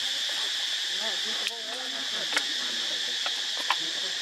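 Steady, even high-pitched drone of insects buzzing, with a few sharp clicks and some faint low wavering sounds in the first half.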